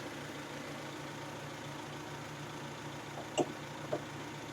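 1998 Acura Integra's four-cylinder engine idling steadily, with two brief knocks about three and a half seconds in.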